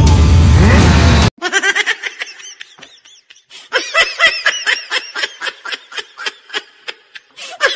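Loud music cuts off abruptly about a second in. Laughter follows in quick repeated pulses, in two stretches with a short pause between them.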